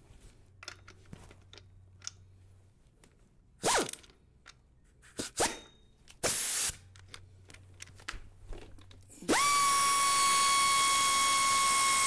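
Pneumatic air ratchet undoing the 14 mm centre bolt of a timing-belt idler pulley. After some handling clicks and a few short bursts, it runs steadily from about three-quarters of the way in, a high steady whine over a hiss of air.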